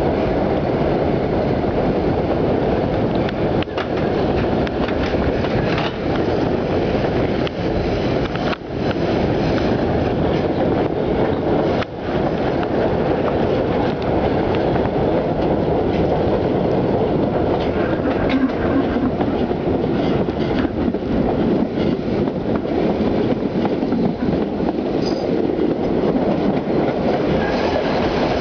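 New York City subway 3 train running along the track, heard from on board: a steady rumble of wheels on rail with occasional clicks and knocks over the rail joints.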